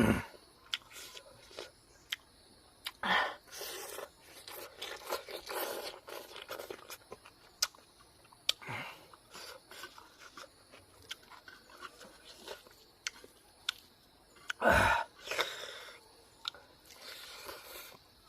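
A person eating close to the microphone: chewing and crunching food, with wet mouth clicks and a few louder bites.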